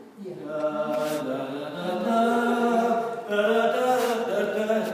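A person's voice singing a slow tune in long held notes.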